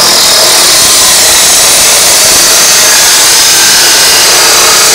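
Abrasive chop saw cutting through stainless steel exhaust tubing: a loud, steady, high-pitched grinding as the wheel bites into the pipe.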